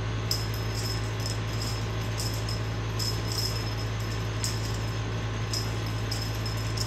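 Small bell or rattle on a cat-wand toy's feathered lure jingling in short, irregular shakes as the lure is flicked and dragged about, over a steady low hum.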